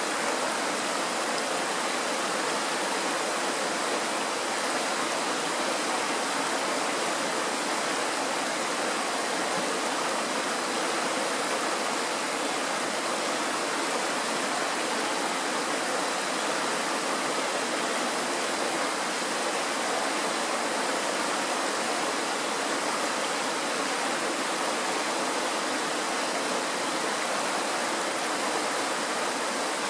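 Mountain stream rushing over rocks and a small ledge: a steady, unbroken rush of water.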